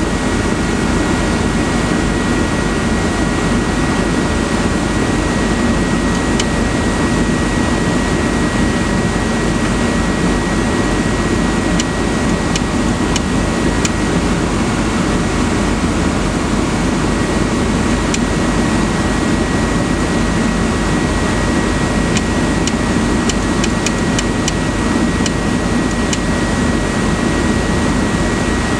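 Steady, loud mechanical drone with a thin constant whine over it, and a few faint ticks in the second half.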